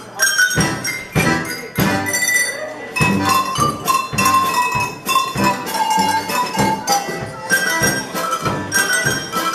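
Tuned cowbells rung by a group playing a lively tune: a quick run of strikes, each bell ringing on at its own pitch.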